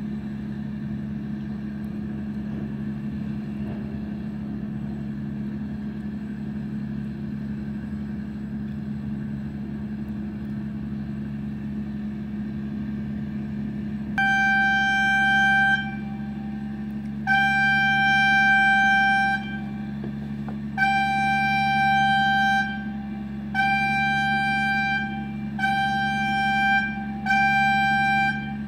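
Construction blasting warning horn sounding six steady-pitched tones in the second half, the later ones shorter and closer together, the signal before a rock blast under blast mats. Underneath, a steady low hum of an idling engine.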